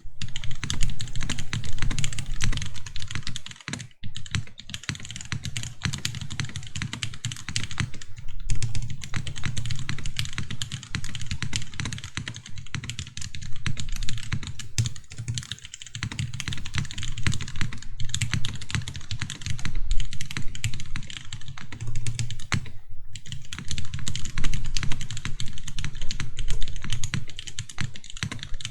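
Continuous fast typing on a custom mechanical keyboard: spring-swapped Cherry MX Black linear switches on a carbon fibre plate, with DMK keycaps clacking, stabilised keys and no case dampening. The keystrokes come in a dense, uneven stream, with brief pauses a few times.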